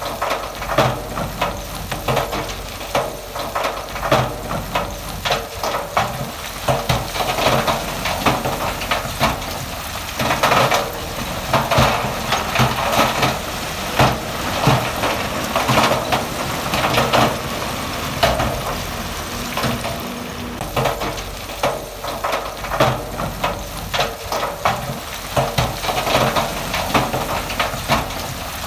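Loose stone clattering and grinding as heavy equipment moves it, with many sharp knocks of rock on rock over the low running of a diesel engine.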